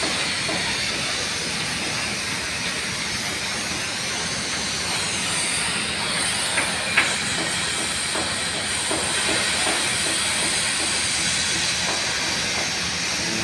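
Steady loud hissing noise from shipyard work, with a couple of sharp knocks about halfway through.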